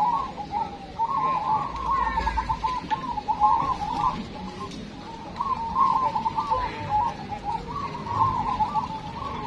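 Caged zebra doves (perkutut) cooing: rapid, trilling coo phrases, three runs of a couple of seconds each with short gaps between.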